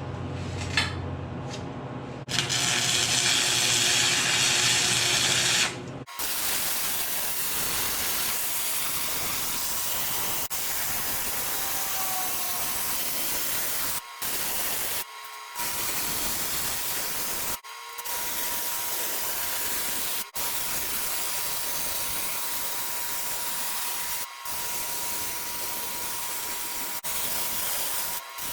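Steel frame pieces being cut with a power metal-cutting tool: a steady hissing noise with a faint steady high tone, which stops and restarts abruptly several times. A louder burst of hiss comes in the first few seconds.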